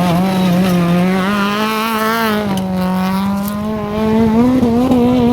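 Rally car engine under hard acceleration, its pitch holding high, falling away as the driver lifts off about halfway through, then climbing again as it pulls hard once more.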